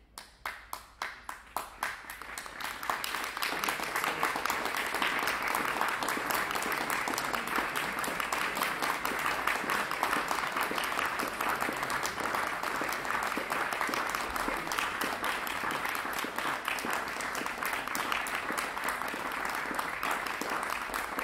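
Audience applauding: a few single claps at first, swelling within about three seconds into steady, dense applause.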